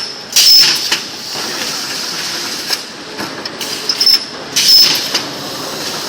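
CNC amorphous core cutting machine running: steady mechanical noise, with two louder bursts carrying a high, thin tone, one about half a second in and another near the five-second mark.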